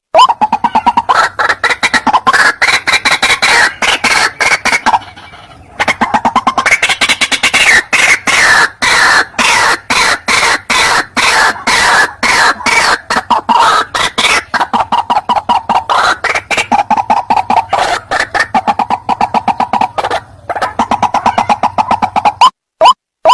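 Recorded white-breasted waterhen (ruak-ruak) calls played as a hunting lure: a fast, loud run of harsh repeated notes, many a second, breaking off briefly about five seconds in and again near the end.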